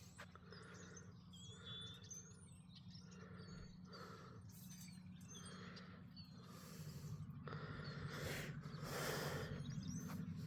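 Faint outdoor ambience: small birds chirping now and then over a low steady hum that grows a little louder in the second half, with soft rustling swells about every second.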